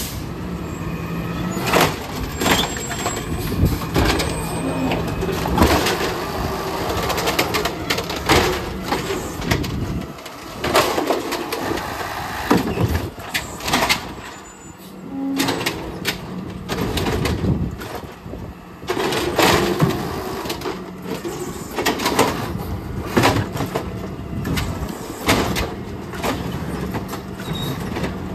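Automated side-loading garbage truck at work: its diesel engine and hydraulics run with a steady low hum, broken by many irregular bangs and clanks as the arm grabs, lifts, empties and sets down the carts.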